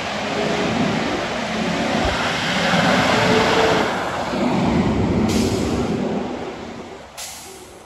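A Seagrave fire engine drives past on an emergency response, its engine and siren sounding together as one loud mix that fades after about six seconds. Two short hisses follow near the end, typical of air brakes.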